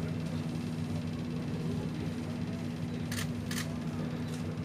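Steady low mechanical hum with two even low tones, overlaid by a few short, sharp clicks about three to four and a half seconds in.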